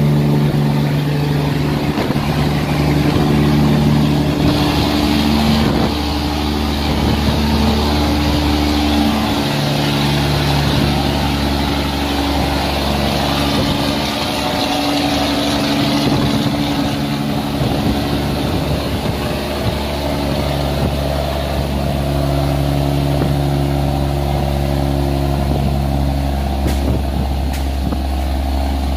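Barge engines running steadily as the barges pass through a sluice gate, with the noise of heavy rain over them; the engine note changes about ten seconds in.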